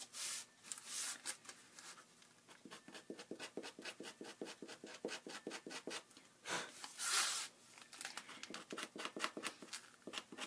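Craft knife blade scraping excess cardboard off the edge of a book cover board in rapid short strokes, several a second, with one longer, louder scrape about six and a half seconds in.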